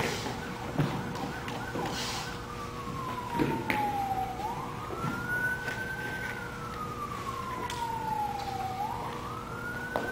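A siren wailing, its pitch sliding slowly down and then quickly back up, twice over, from a couple of seconds in, with a few short knocks.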